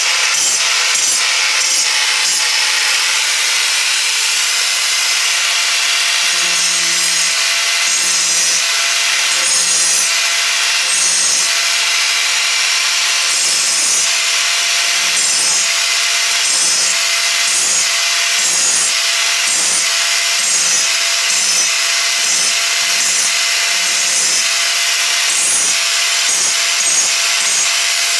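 Power grinder grinding down the sharp edges of a steel anvil: a loud, steady grinding hiss over a constant motor whine, with a soft pulse about once a second.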